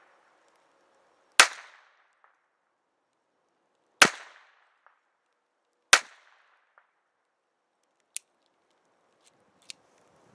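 Three shots from a Phoenix Arms Raven .25 ACP pocket pistol firing Winchester 50 grain full metal jacket rounds, about two seconds apart, each a sharp crack with a short echo. Two faint clicks follow near the end.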